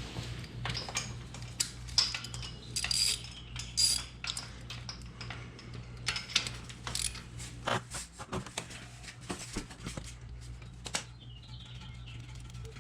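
Ratchet and 17 mm socket clicking and clinking against metal while the oil drain bolt of a Kawasaki Z125 Pro is loosened, in irregular sharp clicks over a low steady hum.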